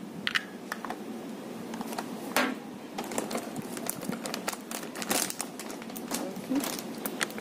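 Plastic packaging crinkling and rustling as a bag of dog biscuits and a small plastic box are handled, with scattered sharp clicks and taps.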